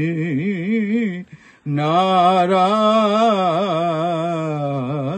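A man singing a devotional chant to the goddess, drawing out ornamented notes with wavering pitch. He breaks off briefly about a second in, then holds one long embellished note.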